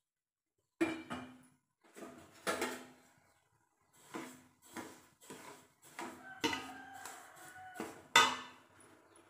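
A slotted metal spoon scrapes and clanks against a metal pot, stirring sugar into hot water to dissolve it for syrup. The strokes are irregular and ring, starting about a second in, with the loudest knock near the end.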